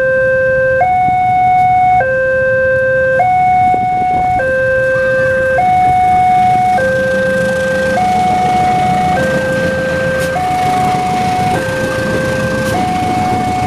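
Railroad crossing's electronic warning alarm sounding a steady two-tone signal, a lower and a higher tone alternating a little more than once a second. From about halfway, the rumble of an approaching diesel locomotive rises beneath it.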